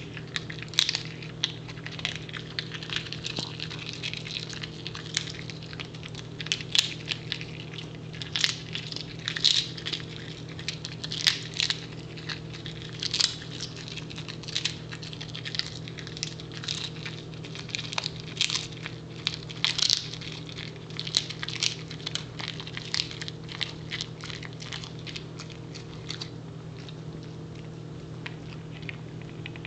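Pembroke Welsh Corgi chewing a dehydrated duck foot: irregular, crisp crunches, sometimes several close together, over a steady low hum.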